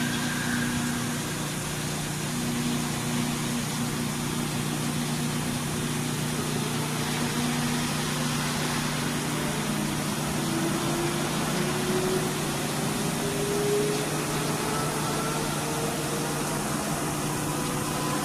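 Bridge-type CNC vertical surface grinding machine grinding a large ring workpiece: a steady machine hum with several held tones over a hiss, and a slowly rising whine entering about ten seconds in.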